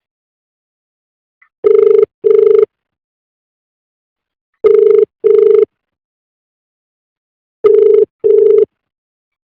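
Telephone ringback tone heard by the caller, with the Australian double-ring cadence: pairs of short steady tones with a long pause between them, three pairs in all, while the outgoing call rings unanswered.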